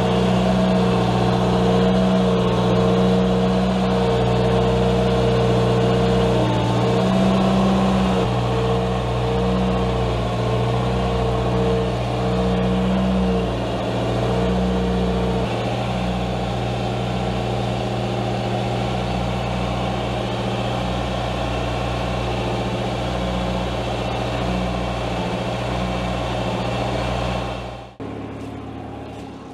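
Compact loader's engine running steadily at working revs while it collects leaves with its front collector attachment, with a wavering whine riding over the engine note. Near the end the sound drops sharply to a much quieter running engine.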